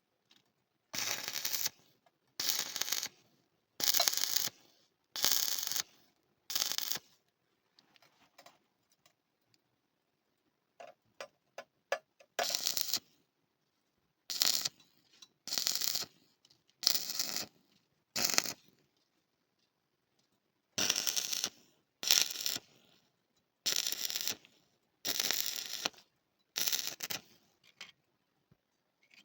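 Electric arc welding laid down in short crackling bursts of under a second each, in three runs of about five, as tack or stitch welds. A few faint ticks fall in the middle pause.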